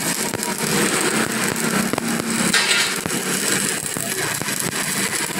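Stick (shielded metal arc) welding on a broken steel truck rear axle: the arc crackles steadily with a dense stream of fast pops.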